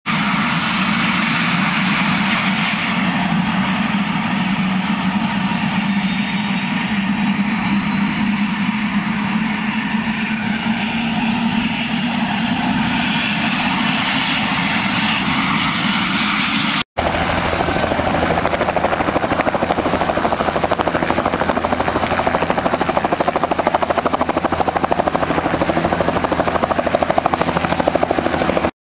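Light turbine helicopters running close by with their rotors turning, a steady engine whine over the rotor noise. About 17 seconds in, a brief cut switches to a second helicopter with a slightly different, denser sound.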